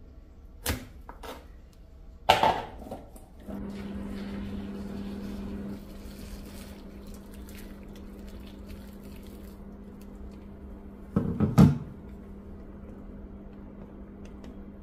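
A knife clicks twice against a wooden cutting board as chestnuts are scored, then there is a loud knock. Boiling water is poured into a stainless steel bowl of chestnuts over a steady low hum, and near the end a wooden spoon knocks several times against the bowl.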